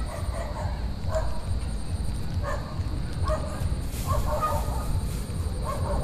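An animal calling again and again in short pitched calls, roughly one a second, over a steady low rumble.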